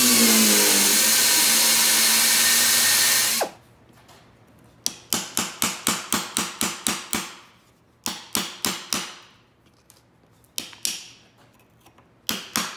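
An electric drill runs under load for about three and a half seconds, drilling out a very hard steel cleat rivet on an old snowmobile track. Then a hammer taps a punch against steel in several quick runs of sharp strikes, about five a second, knocking the drilled rivets loose from the cleat.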